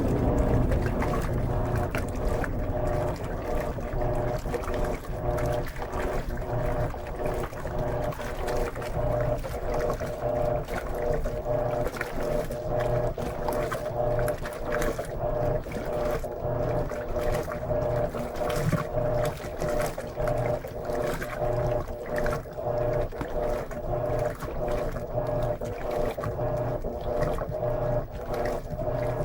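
Electrolux LM13Q top-load washing machine agitating a load of jeans in water: a motor hum that swells and dips in a steady rhythm with each stroke, with water sloshing. A rushing water sound fades out right at the start.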